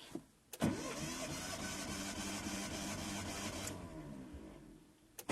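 Hyundai Verna's 1.5-litre SOHC four-cylinder engine turned over by its starter motor with the spark plugs removed and a compression gauge screwed into cylinder three, so only that cylinder pumps against compression. The starter spins up about half a second in, cranks steadily for about three seconds, then fades off, and starts again at the very end.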